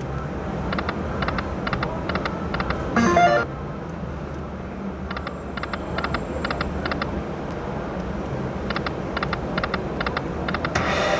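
Lightning Link slot machine spinning its reels, with quick electronic ticks in short runs over a steady casino background hum. A brief louder chime comes about three seconds in.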